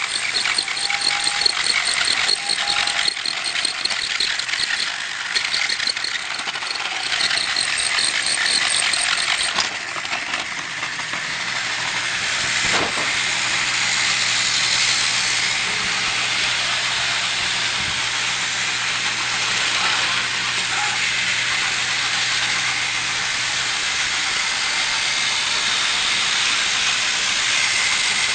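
Battery-powered toy train running on plastic track, with a fast regular ticking rattle for about the first ten seconds, then a steady whirring hiss with a low hum under it.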